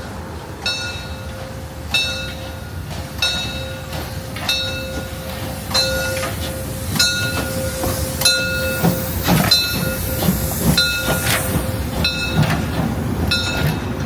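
Steam train at a station: a metallic ringing strike repeats about every second and a quarter over a steady tone, with heavier low knocks and clanks in the second half.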